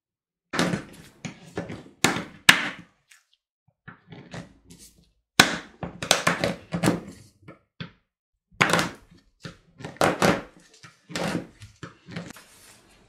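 Chef's knife chopping a bar of white chocolate on a wooden cutting board: a run of sharp thunks as the blade cuts through onto the wood, in several bursts with short pauses between.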